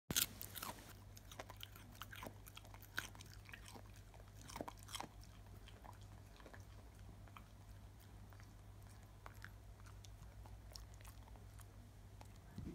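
Dog chewing a raw carrot: irregular crisp crunches and bites, busiest in the first five seconds and sparser after that, over a steady low hum.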